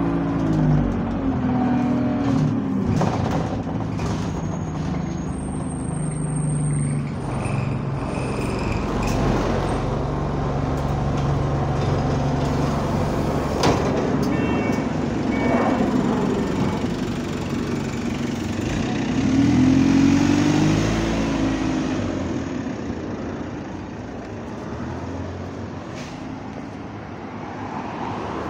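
Diesel bus engine running and accelerating, its pitch rising and falling in sweeps, loudest about two-thirds of the way through. There is a sharp burst about halfway, and the engine grows fainter near the end.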